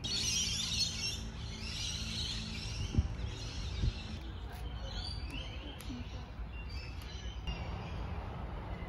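Many birds chirping and twittering at once, densest in the first few seconds, then thinning to scattered calls.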